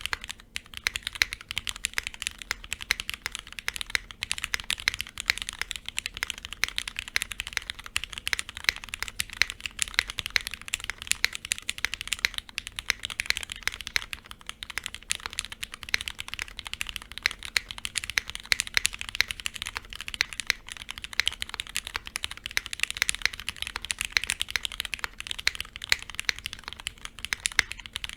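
Custom mechanical keyboard with lubed, filmed Cherry MX Black linear switches, GMK keycaps and a polypropylene plate being typed on continuously: a fast, dense stream of keystrokes.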